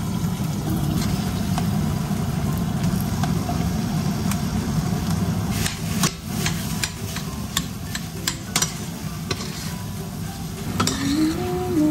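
Metal spoon scraping and tapping as raw ground meat is scooped from a plastic tray into a stainless steel pot and stirred in with frying onions, with a cluster of clicks and clinks in the middle. A steady low hum runs underneath.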